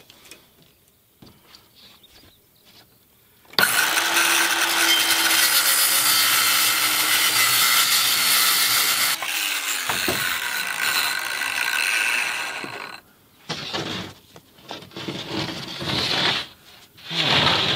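Ryobi cordless circular saw cutting across a large sheet panel, starting about three and a half seconds in and running for about six seconds under load. The motor then winds down with a falling pitch. Knocks and scraping follow as the cut-off piece is handled.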